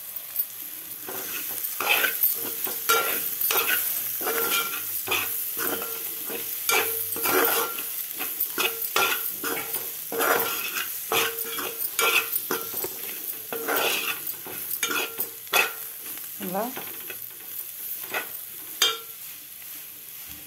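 Slotted metal spatula scraping and stirring ivy gourd (dondakaya) fry around a metal pot, over a steady sizzle of frying oil. The scrapes come about once or twice a second, some ringing faintly off the pot.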